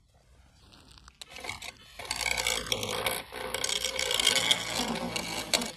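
A hand tool scraping old screen adhesive off a phone's frame during frame cleaning before a new screen goes on. The uneven scratchy scraping builds about a second in and stops just before the end.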